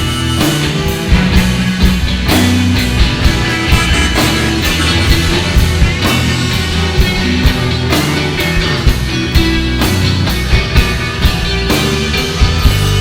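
Live rock band playing an instrumental passage: electric guitars, bass guitar and a drum kit, with the drums keeping a steady beat of sharp hits.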